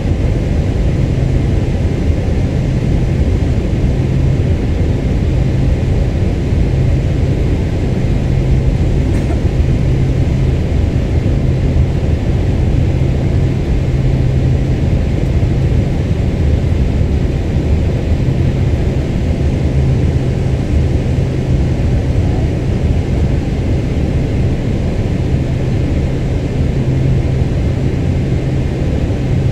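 Steady engine and airflow noise inside the economy cabin of a Boeing 747-8, its GEnx-2B engines running, with a constant low hum and no change in level.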